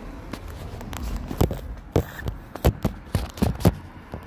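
Footsteps on a concrete sidewalk: a run of sharp, irregular taps and scuffs starting about a second in and stopping near the end.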